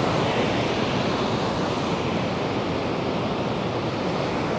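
Cascading waterfall on a mountain creek, falling water rushing steadily and evenly.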